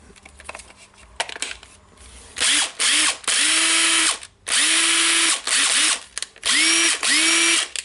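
DeWalt DC827 cordless impact driver motor running with no load in about seven short trigger bursts, starting a couple of seconds in. Its whine rises as it spins up in each burst. This is a run test after the armature and gear repair.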